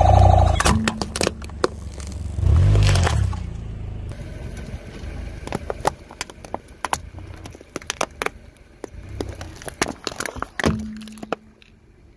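Car tyre rolling over and crushing plastic toys and slime-filled plastic bottles: a low engine and tyre rumble at the start and again about three seconds in, then a long run of sharp cracks, snaps and crackles as the plastic breaks.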